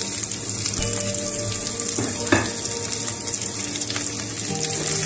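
Cubed onions sizzling in hot oil in a non-stick pan, a steady crackling hiss, with a wooden spatula stirring them.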